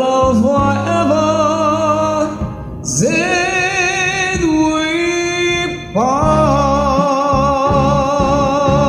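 Karaoke song ending: three long held sung notes with vibrato over the backing track, each sliding up into pitch, the last one starting about six seconds in.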